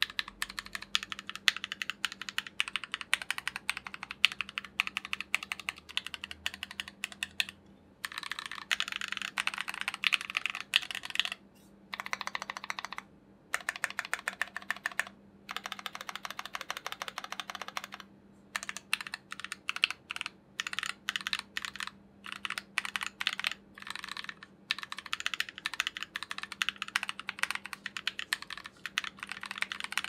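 Keystrokes on an IDOBAO Montex Pad mechanical numpad with Gateron Ink Black V1 linear switches and Durock V1 stabilizers: fast runs of key presses broken by short pauses, with slower, separate presses about two-thirds of the way through.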